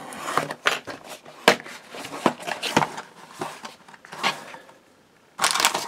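Cardboard box being opened by hand: the flap tab pulled out and the lid and foam insert lifted, with scattered scrapes, rustles and light knocks. Near the end a louder burst of crinkling from plastic wrapping.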